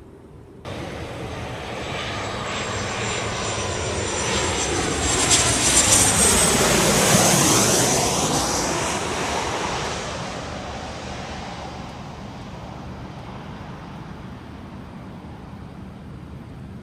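Jet airliner passing by on its landing approach. Its engine noise begins suddenly about a second in, swells to a peak with a high whine and falling pitch as it goes past, then fades away.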